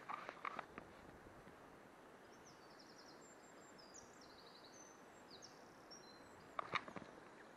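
Faint outdoor hiss with a small songbird singing short, high, quick trills in the middle. A few sharp clicks and knocks at the start and again near the end come from the fly rod and line being handled.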